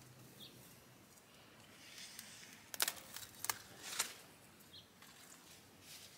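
Fresh leafy greens rustling and crackling as they are handled in a stainless mesh strainer, with a cluster of sharp crackles in the middle.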